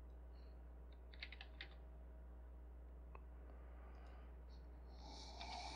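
Faint computer keyboard keystrokes: a quick cluster of clicks about a second in, then a few scattered single clicks, over a steady low hum. A short breathy hiss comes near the end.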